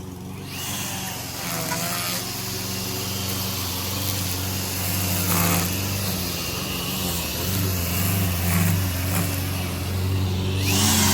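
Small gasoline lawn-equipment engine running steadily, growing louder over the first second.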